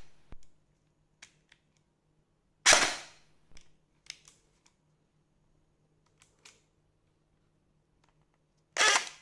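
Two loud gunfire bursts about six seconds apart, the first trailing off over half a second, with scattered faint clicks between them.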